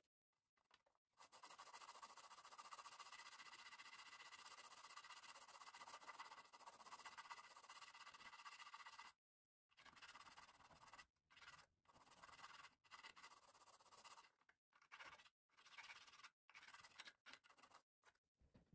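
Faint scratching and scraping of a metal hand file on a small wooden model-ship part, coming in short strokes about once a second in the second half.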